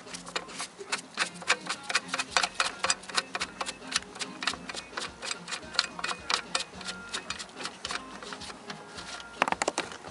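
A run of sharp, irregular clicks and ticks, several a second, with a quick cluster near the end over a faint steady low hum.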